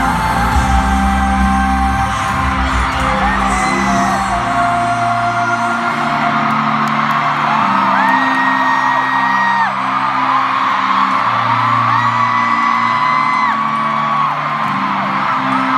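Live pop music at a concert: a male singer holding long, gliding notes over a backing track with a steady bass, with audience screams and whoops mixed in.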